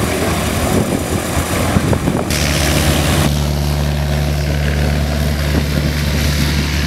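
Propeller aircraft piston engine running. The sound is noisy at first, and about two seconds in it changes to a steady low drone.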